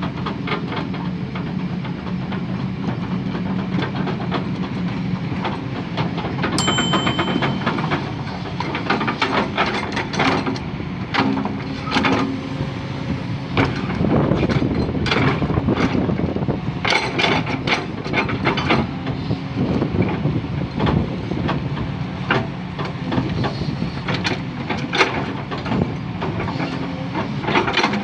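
Heavy construction machinery at work: a diesel engine running steadily under many irregular metallic clanks and knocks, with a short high beep about six seconds in.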